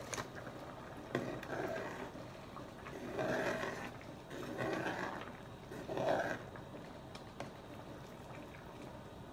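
Pot of boiling pasta water being stirred with a long spoon while the lid is held off, making a few soft swishing swells.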